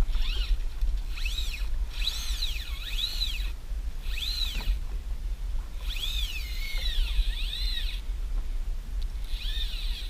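Fly reel whining as its spool turns during a fight with a fish. Its pitch swoops up and down in repeated arcs as the spool speeds up and slows, in several bursts with short gaps, over a steady low rumble.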